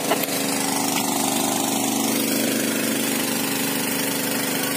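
Small generator engine running steadily at one constant speed, driving the pump that empties the stream pool through a pipe.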